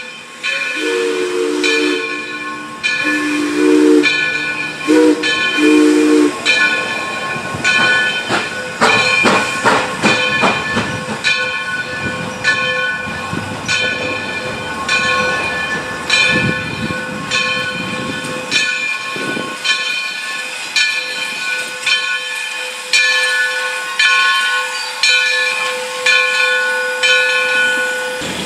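Steam locomotive whistle sounding four blasts, long, long, short, long, then the engine's exhaust chuffing as it gets under way. A bell rings steadily about once a second throughout, over a constant hiss of steam.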